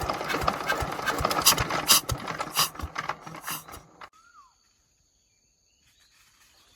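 Loud mechanical clatter with irregular metallic knocks, cutting off abruptly about four seconds in.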